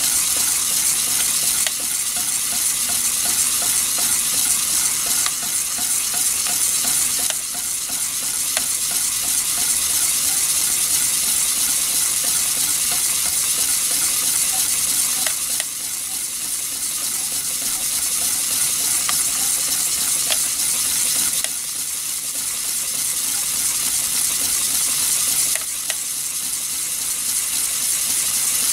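Brass Hero steam engine (aeolipile) running: steam hissing steadily from the jets of its spinning ball, with scattered small crackles and a few slight dips in the hiss.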